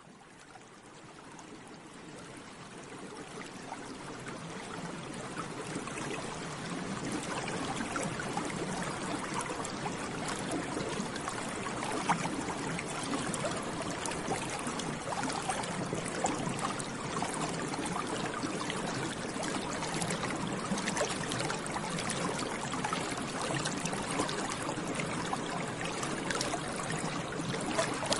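Bubbles rising and bursting in water, a steady dense bubbling with small pops. It fades up from faint over the first several seconds and then holds steady.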